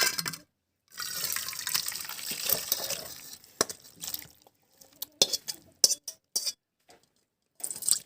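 Water pouring and splashing for about two and a half seconds, then a run of scattered clinks and knocks from pots and utensils being handled.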